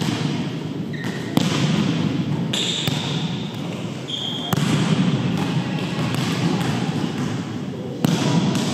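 Indoor volleyball play in a large echoing gym: a steady loud hiss of room noise, broken by a few sudden hits about a second and a half, four and a half and eight seconds in, and brief high squeaks of sneakers on the wooden court.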